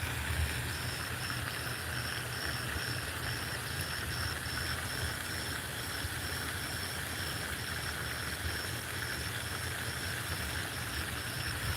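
Outdoor ambience: a high, even chirp repeating about twice a second over a steady hiss and a low wind rumble on the microphone.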